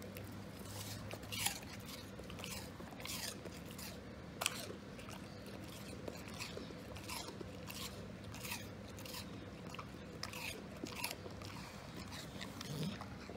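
A big dog crunching and chewing apple pieces, a string of irregular wet crunches.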